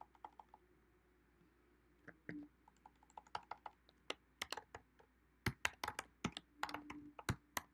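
Typing on a computer keyboard: a run of quiet key clicks, sparse at first and coming thick and fast from about two seconds in.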